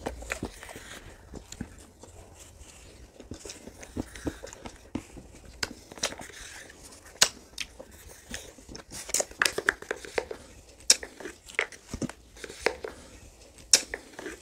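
Someone eating ice cream close to the microphone: a run of sharp mouth clicks and crunches with some crinkling, sparse at first and much busier in the second half.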